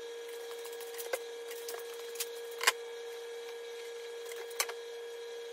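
A few sharp, light clicks and taps of tools or material being handled, the loudest about halfway through, over a steady faint hum.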